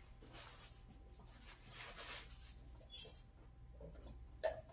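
Quiet sounds of eating and drinking water at a table: faint sips and breaths, a short scrape about three seconds in, and a small knock near the end.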